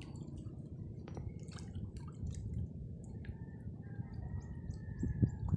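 Small water drips and splashes over a low rumble, with a thin steady high tone in the second half and a thump near the end.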